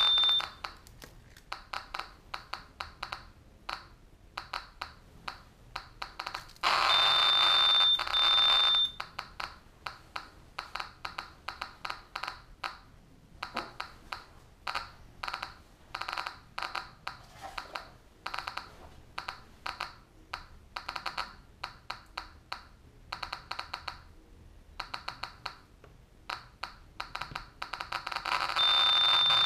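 SV500 Geiger counter with an SBT-10 probe clicking at counts. A dense rapid crackle with a steady high warning tone opens, then gives way to sparse irregular clicks of background radiation. The dense clicking and tone return for about two seconds around seven seconds in, and again near the end with a plutonium-239 source at the probe.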